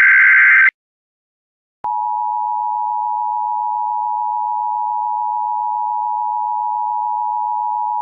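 An Emergency Alert System header data burst, a harsh digital screech, cuts off just under a second in. After about a second of silence, the steady two-tone EAS attention signal begins.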